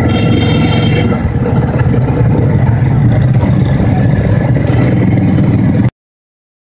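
Loud vehicle engine and road noise while travelling along a busy town street, with some steady high tones near the start. The sound cuts off abruptly into silence about six seconds in.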